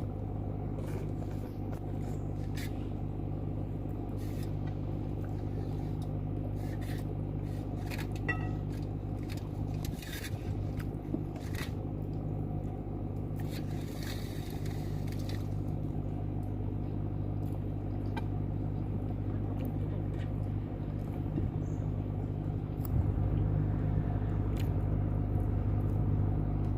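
A steady low machine hum, with scattered light clicks and scrapes over it; the hum grows a little louder near the end.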